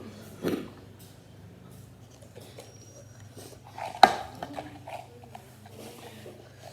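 Tableware and packets being handled and set down: a dull thump about half a second in, a sharp knock about four seconds in, and a few faint clicks and rustles.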